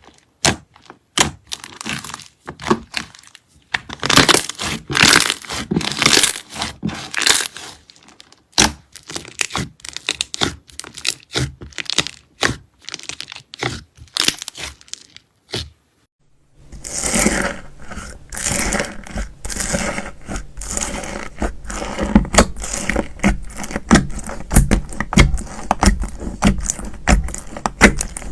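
Slime being squeezed and worked by hand, giving dense runs of crackling clicks and pops. A short pause about halfway through gives way to a fuller, thuddier stretch of squishing and popping.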